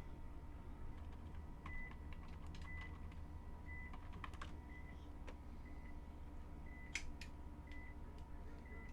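Faint, irregular clicks and taps over a steady low hum, bunched in the middle with one sharper click about seven seconds in.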